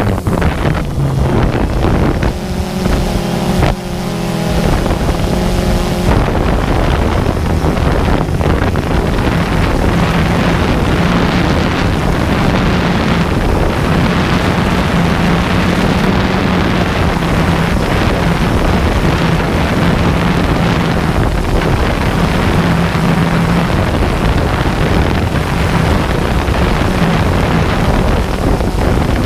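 Multirotor drone's motors and propellers buzzing steadily, with a low hum that shifts slightly in pitch, mixed with wind noise on the microphone.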